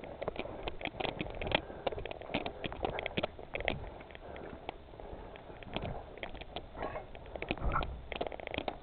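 Footsteps and handled gear of airsoft players on the move: a dense run of irregular clicks and taps.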